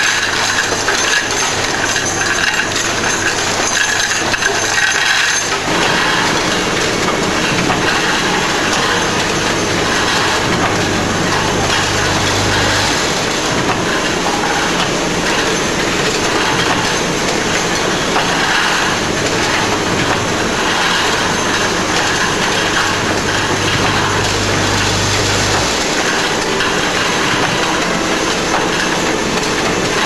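Automated parts-handling machinery running: a continuous, loud clatter and rattle of conveyor and metal parts. A low steady hum runs under it, cuts out a little before halfway, comes back, and cuts out again near the end.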